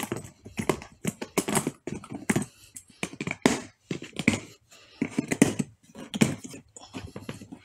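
Padlock and plastic snap latches of a Plano hard gun case being undone: a string of sharp clicks and knocks.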